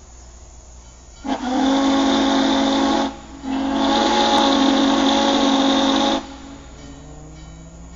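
Norfolk & Western 611 steam locomotive's chime whistle sounding two long blasts, the second a little longer, each a steady chord over a hiss of steam. Two long blasts are the standard railroad signal that the train is about to move off.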